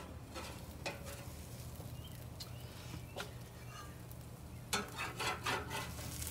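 Metal spatula scraping and clicking against the grill grate as skin-on redfish fillets are lifted off, with light sizzling. The clicks and scrapes come thickest near the end.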